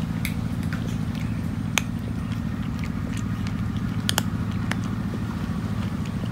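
Cat crunching dry kibble: irregular sharp crunches, the loudest about two seconds in and a quick cluster around four seconds in, over a steady low hum like a running motor.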